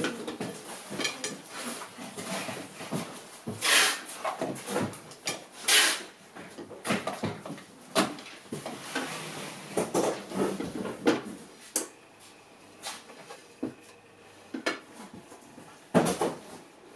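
Irregular hard plastic clicks, knocks and rattles as the parts of a YEDOO YD-218 electric fly trap are fitted together and handled, with a sharp click about halfway through as its plug is pushed into a power strip.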